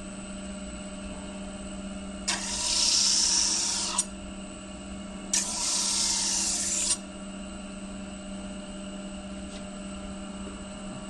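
Electric disc grinder running steadily with a low hum, while a steel knife blade is pressed against its 120-grit abrasive disc in two hissing grinding passes of about a second and a half each, starting about two seconds in and again about five seconds in. The passes take the blade through the grit progression, blending out the earlier scratch pattern.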